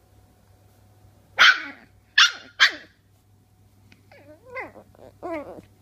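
Norfolk Terrier puppy barking at a hairbrush: three sharp, loud yappy barks in quick succession about a second and a half in, then a few softer yelps that fall in pitch near the end.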